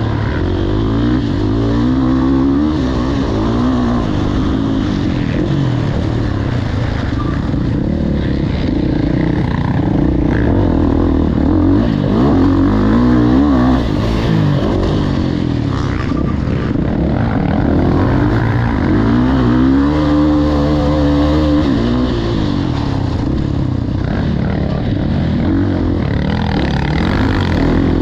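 Motocross bike engine revving up and down again and again, the pitch climbing and dropping as the throttle is worked and the gears change.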